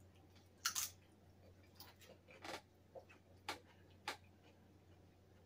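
Crunching bites and chews of a crisp tortilla chip: about six short, sharp crunches over roughly four seconds, the first one the loudest.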